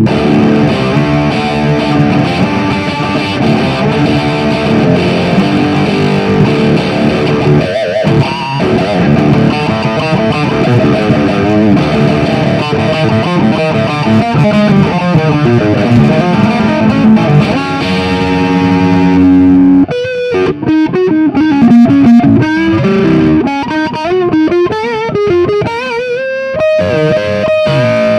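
Distorted electric guitar through a Soldano SLO 30 Mini amp head's overdrive channel, with an overdrive pedal stacked in front. Dense chords and riffs for most of the passage, then, about two-thirds through, a single-note lead with string bends that ends on a long held note.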